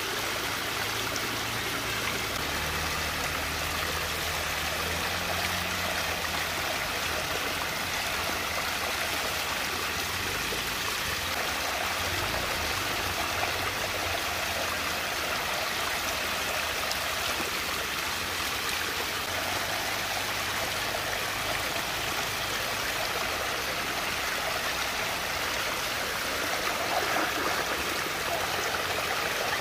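Water swirling and rushing steadily down a whirlpool vortex, with a faint low hum underneath that fades out about two-thirds of the way through.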